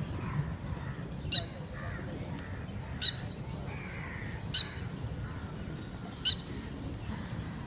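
Red-wattled lapwing calling: four sharp, shrill single notes at even intervals of about a second and a half.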